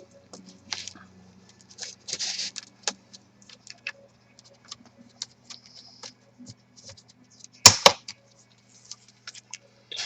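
Gloved hands handling small laptop parts: scattered light clicks and rustling, a short rustle about two seconds in and a sharp double click about eight seconds in, over a faint steady hum.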